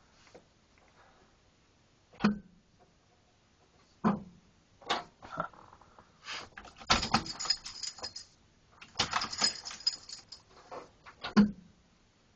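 Handling noises: a few separate knocks and clicks, with two short spells of jingling rattle about seven and nine seconds in.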